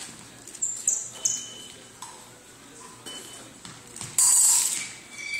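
Fencing bout: épée blades clinking and fencers' shoes squeaking on a hardwood floor, heard as a string of short, sharp sounds. A louder burst comes about four seconds in.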